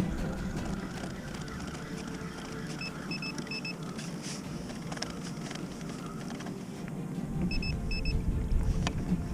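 Short high electronic beeps in two small groups, a few seconds apart. Behind them are sea and wind noise on a kayak with small knocks, and the wind-like rumble grows near the end.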